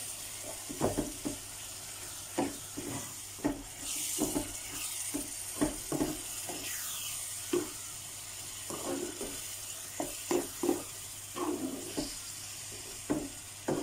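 Thick tomato and onion chutney sizzling in a pan while a spatula stirs it, with repeated short scraping strokes against the pan at irregular intervals over a steady faint sizzle.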